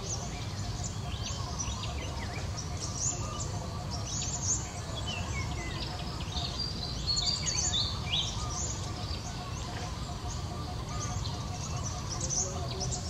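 Several wild birds chirping and calling, with many short high notes and a few quick falling whistles, over a low steady rumble.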